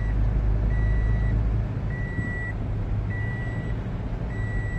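A car's electronic warning chime beeping steadily, one high beep about every second and a quarter, over the low rumble inside the car's cabin.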